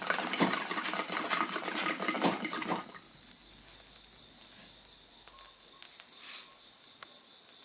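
Bamboo water pipe bubbling loudly as tobacco smoke is drawn through it, for about three seconds. Then a wood fire crackles quietly under a steady high chirring of crickets.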